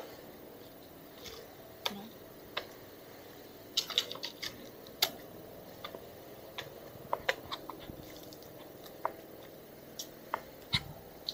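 Irregular sharp clicks and taps from someone walking with a handheld camera: footsteps and handling noise. They come in loose clusters about four and seven seconds in, over a faint steady hiss.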